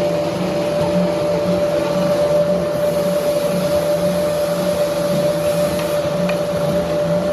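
Wood-peeling machinery running steadily: a constant hum with a steady mid-pitched tone and a low pulse about twice a second, under a broad mechanical noise.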